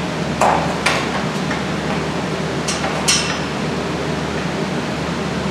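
Four sharp metallic clinks and knocks, in two pairs in the first part, as a new driveshaft and its center support bearing bracket are worked into place, over a steady shop hum.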